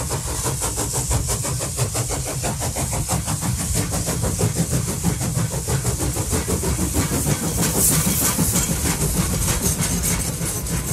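A train running, with a low rumble, a hiss and a fast, even beat of about five a second.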